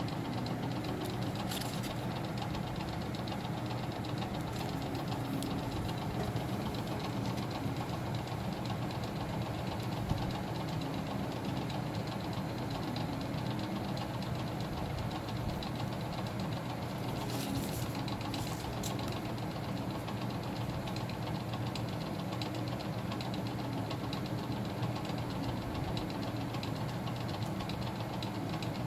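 A steady low mechanical hum, like a motor running continuously.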